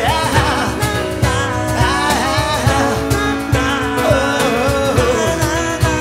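Live band music: a male vocal sung over guitar and piano, with a steady beat.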